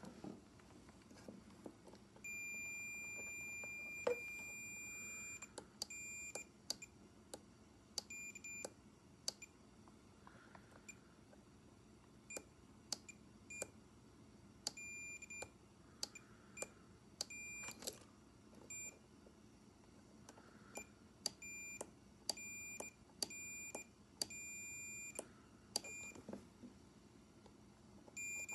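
Electronic continuity beeper of a multimeter sounding on and off, most likely as the power window switch's contacts are tested: one long beep early, then many short beeps of uneven length, all at one high pitch. Small clicks fall between the beeps.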